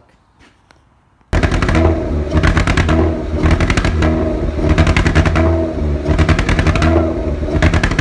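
After a brief faint lull, a loud Audi TT 3.2-litre V6 engine starts sounding abruptly about a second in, running close to the microphone with an uneven beat and a crackling surge about once a second.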